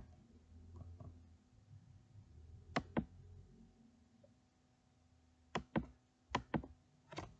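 Light, sharp knocks on wood, mostly in pairs about a fifth of a second apart: one pair a little before the middle, and three more knocks or pairs close together near the end.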